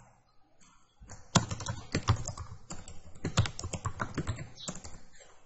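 Typing on a computer keyboard: a quick, irregular run of key clicks that starts about a second in.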